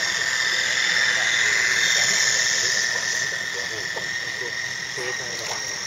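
The small electric motor of a radio-controlled model boat whining steadily. It grows louder about a second in and fades off after about three seconds.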